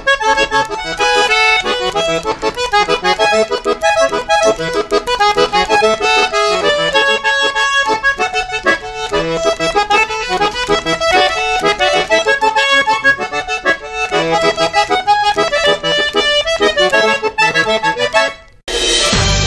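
Diatonic button accordion playing a lively vallenato melody in quick runs of notes. It stops abruptly about a second before the end.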